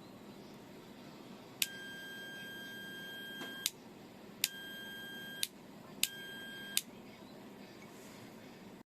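Three steady electronic beeps of falling length, the first about two seconds, then about one second, then shorter, each starting and ending with a sharp click.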